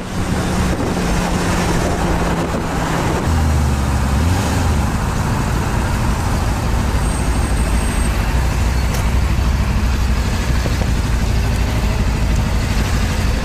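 Sport motorcycle engine running at road speed under wind and road noise. Its note drops and wavers about three seconds in, then holds steady and low.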